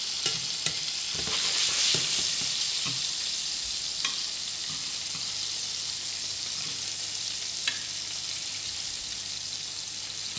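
Bacon-wrapped scallops frying in butter in a stainless steel pan, a steady sizzle. Light metal clicks of tweezers against the pan come several times in the first few seconds, and once or twice later.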